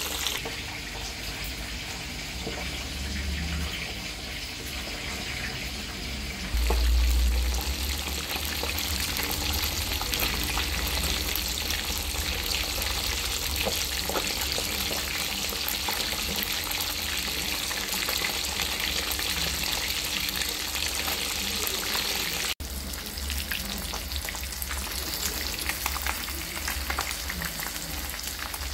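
Whole fish deep-frying in hot oil in a pan: a steady sizzle with fine crackling pops. A low rumble swells for about a second and a half around seven seconds in, and the sound breaks off for an instant about three-quarters of the way through.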